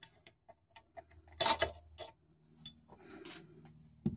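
Small metallic clicks and ticks of a turbocharger cartridge being worked apart by hand at a bench vise, with a short clatter about a second and a half in, a faint rubbing sound around three seconds, and a sharper knock at the very end.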